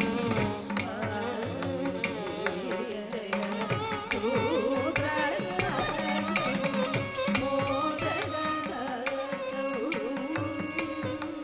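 Live Carnatic music: a woman's voice and violin carry a gliding melody over a rhythm of mridangam and ghatam strokes.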